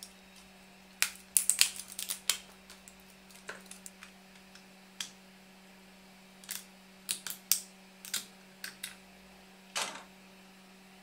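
Sharp, irregular snaps and clicks of a printed polycarbonate raft cracking away from a 3D-printed part as it is broken off by hand and cut free with a utility knife. The snaps come in a quick cluster in the first couple of seconds, then as scattered single clicks. A steady low hum runs underneath.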